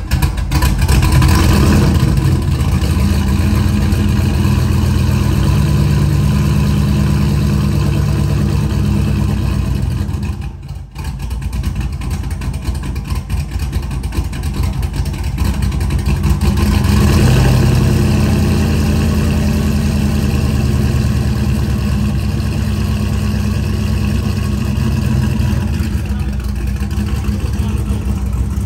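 Turbocharged LS1 V8 running soon after being started, mostly at a steady idle. The sound dips sharply about ten seconds in, then picks up again, with the engine getting louder for a while around two-thirds of the way through.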